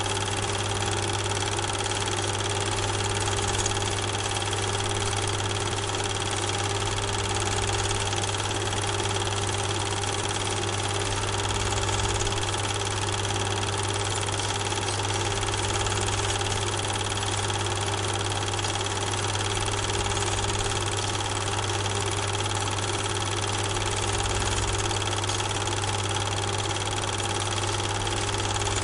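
A steady mechanical hum with an even hiss, unchanging throughout.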